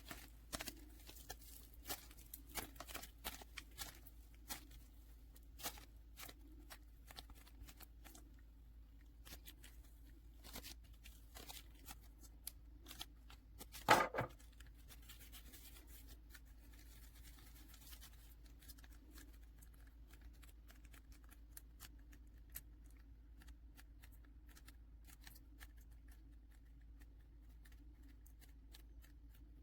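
Faint handling sounds of Play-Doh Air Clay crafting: scattered small clicks, taps and rustles, many in the first dozen seconds and fewer after. One louder knock comes about fourteen seconds in.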